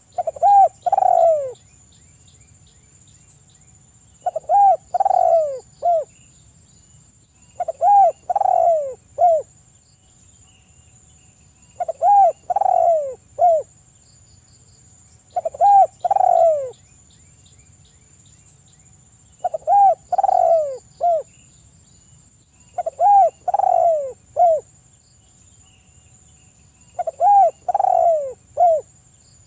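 Spotted dove cooing: a short phrase of several falling coos, repeated about every four seconds, eight times.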